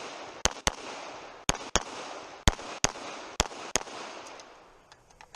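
Pistol shots fired in quick pairs: eight shots as four double-taps about a second apart, each pair with a lingering echo that dies away near the end.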